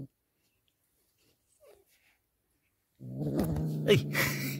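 Nearly silent for the first three seconds. Then a kitten's low, steady growl starts as it guards a piece of raw meat held in its mouth.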